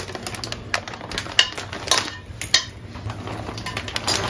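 Steel slotted spoon clinking against a stainless steel kadai, about five separate clinks, with a plastic snack packet crinkling near the end.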